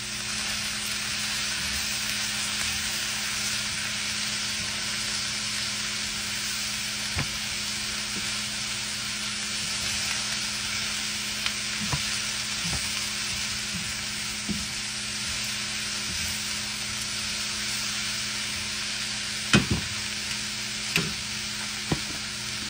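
Sliced cabbage and onions frying in olive oil in a skillet, sizzling steadily, with occasional sharp clicks of tongs against the pan as the cabbage is tossed; the loudest clicks come near the end.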